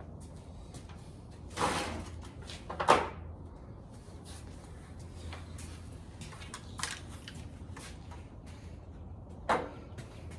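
A few knocks and clunks, the loudest about three seconds in and another near the end, over a low steady hum.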